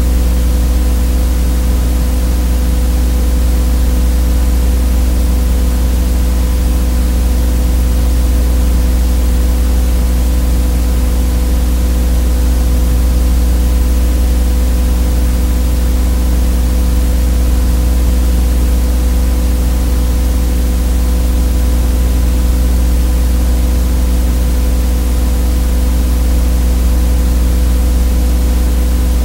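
Steady electrical buzz with hiss, unchanging throughout: unwanted noise on the soundtrack of a transferred 8mm home movie, not sound from the filmed scene.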